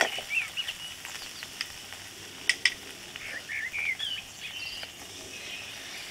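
Ginger-garlic paste frying and sizzling in oil and ghee in a wok while it is stirred with a metal spatula, with two sharp taps about two and a half seconds in as the cashew paste is spooned in. Birds chirp in the background.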